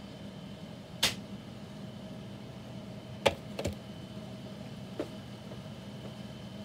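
Microwave oven running with a steady hum. A sharp click comes about a second in, two more a little after three seconds, and a lighter one at about five seconds.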